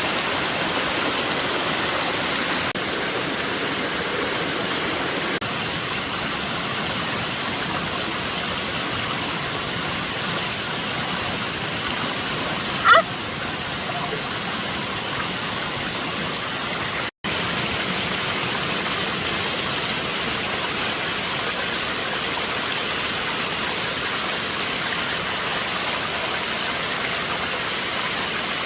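Steady rushing water, an even hiss across the whole range. About 13 seconds in there is one short high-pitched sound, the loudest moment, and near 17 seconds the sound drops out for an instant.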